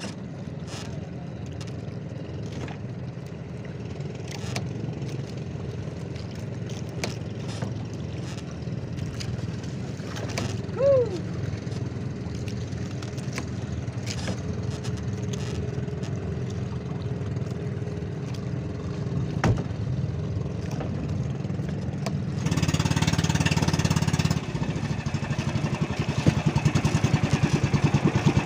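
Outrigger fishing boat's engine running steadily, with scattered small clicks and knocks. About three-quarters through it grows louder along with a rushing hiss, and near the end it settles into a fast, even chugging.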